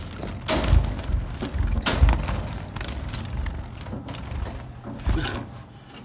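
A wooden nest box being fitted onto a wire bird cage: knocks and rattles of wood against the metal cage bars, loudest about half a second in, at two seconds and again around five seconds.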